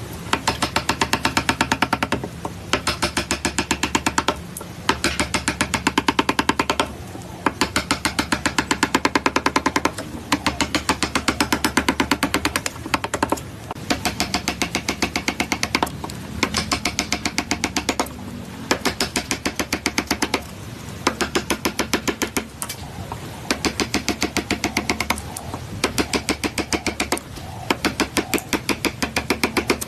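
A machine making rapid, even knocks in runs of one to two seconds, with short pauses between the runs.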